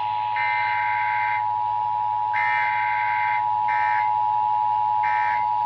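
Emergency alert attention tone from a weather radio receiver: one steady, loud tone just under 1 kHz, sounding ahead of a new severe thunderstorm warning. A second, higher alarm beeps over it in bursts, two long ones and then two short ones.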